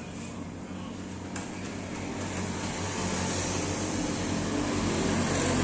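A steady low motor hum that grows louder over the last few seconds, with a faint click about a second and a half in.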